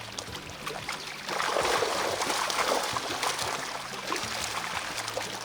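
Water splashing and pouring off as a keep net holding the catch of crucian carp and a carp is hauled out of the water. It gets louder about a second in and eases off after the middle.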